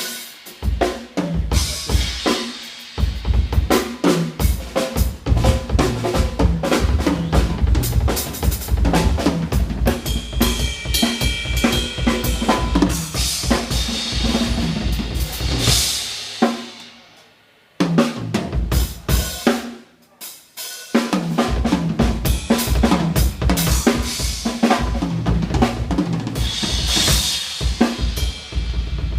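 Drum kit played in a sound check: busy kick and snare patterns with fills and cymbal crashes. It breaks off twice, briefly, about two-thirds of the way through, then starts up again.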